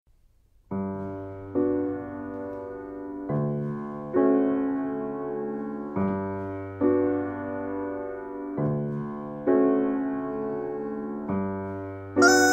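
Grand piano playing a slow accompaniment, a low bass note followed by a chord, the pattern repeating about every two and a half seconds. Near the end a rubber chicken comes in with a loud, high-pitched squawk over the piano.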